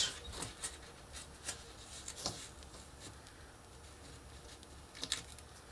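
Faint rustling of paper and chipboard, with a few light taps (the clearest near the end), as hands press a chipboard circle into a glued chipboard dome piece on a paper sheet.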